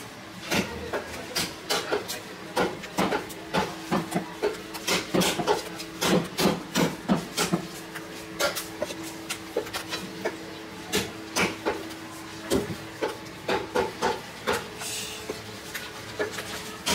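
A large butcher's knife chopping beef on a wooden log chopping block: quick repeated chops, about two to three a second, with short pauses.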